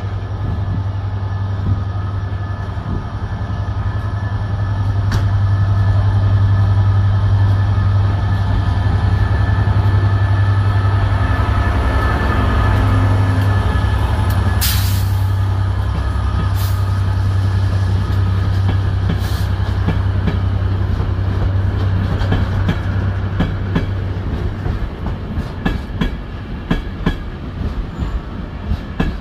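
Class 67 diesel locomotive's EMD V12 two-stroke engine running, a loud steady deep drone as it passes at close range. Toward the end, the coaches' wheels click over the rail joints as they roll by.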